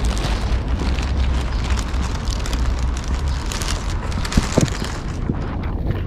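Wind rumbling and buffeting on a handheld camera microphone while walking, with a few footsteps on pavement about four and a half seconds in.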